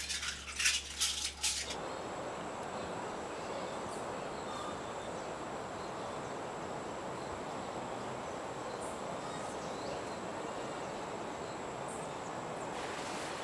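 Light clatter of kitchen dishes and utensils for the first second or two, then steady outdoor garden ambience: an even hiss with a faint, steady high insect tone and a few faint bird chirps.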